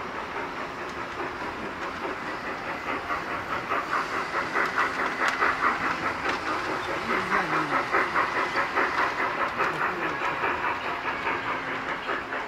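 Large-scale model train running along its track past the microphone, with a fast, even pulsing clatter that grows louder through the middle as the train passes close.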